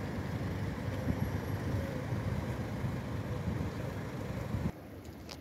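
Steady street noise with a low rumble of road traffic. It drops away abruptly near the end, leaving a quieter hiss and one short click.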